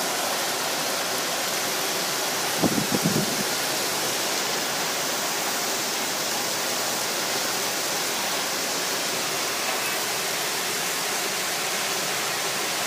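Heavy rain falling steadily, an even dense hiss, with a short run of low thumps about two and a half seconds in.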